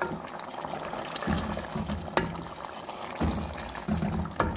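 Beef curry bubbling in hot oil in a pot while a wooden spoon stirs it, with a few sharp knocks and scrapes of the spoon against the pot.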